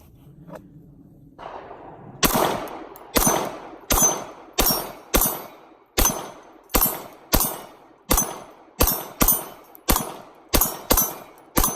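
A 9mm Glock 19 pistol firing a steady string of about fifteen shots at steel plates, roughly one every half second to second, each crack trailing a short ring. The shots are hits on the steel.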